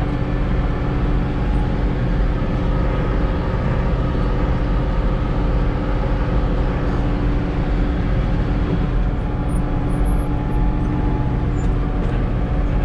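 Tractor engine running steadily under load while powering a New Holland 456 sickle-bar mower cutting slough hay.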